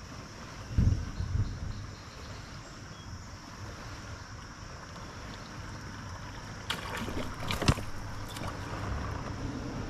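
Kayak on the water with steady wind and water noise. Two low thumps come about a second in, and a short run of sharp clicks and knocks comes about two thirds of the way through.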